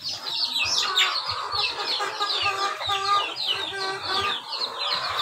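A flock of heritage chickens clucking and calling, many short calls overlapping without a break.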